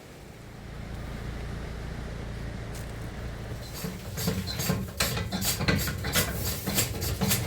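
Engine running with a low steady hum, with irregular knocking and rattling that starts about four seconds in and grows louder.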